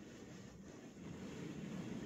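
Water from a garden-hose spray nozzle hitting the car's windshield, heard from inside the car as a muffled steady spray, growing a little louder about a second in.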